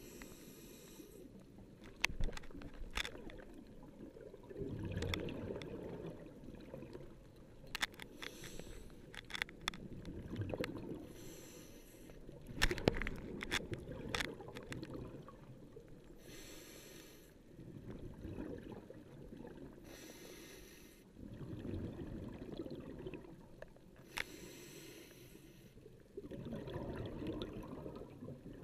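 A scuba diver breathing through a regulator underwater. A hiss on each inhale alternates with the burbling rush of exhaled bubbles, in slow, regular breaths about every four seconds. Scattered sharp clicks cut in, the loudest about halfway through.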